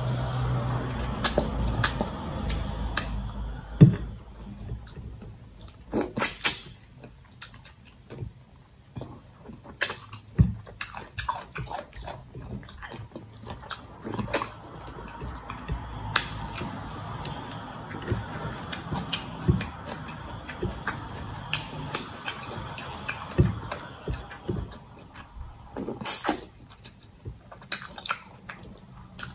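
Close-miked eating sounds as starch fufu and soup are eaten by hand: chewing, lip smacks and finger-sucking, with many sharp mouth clicks throughout, the loudest about four seconds in and near the end.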